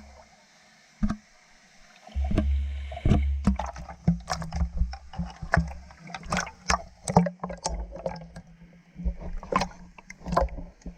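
Water splashing and sloshing close to an action camera, with many sharp knocks and clatters on the camera and low rumbling buffets on the microphone for a few seconds.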